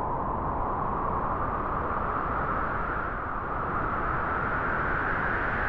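A steady rushing noise with no distinct tones or knocks, its pitch edging slightly upward over the few seconds.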